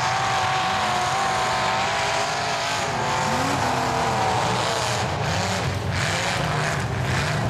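Big-tired mud-bog truck engines revving hard as the trucks churn through deep mud, the pitch rising and falling several times.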